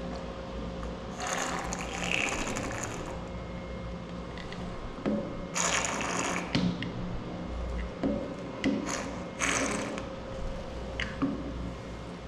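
Mechanical rattling and clicking: three longer bursts of scraping rattle and a few single sharp clicks.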